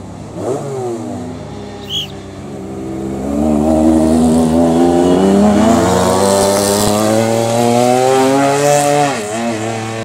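Lancia Stratos rally cars' V6 engines pulling hard uphill. The revs climb steadily as one car passes close, with a quick dip and rise in pitch near the end as it shifts gear.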